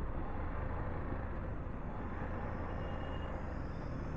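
Road traffic noise: the steady low rumble of vehicles running around a stopped motorcycle.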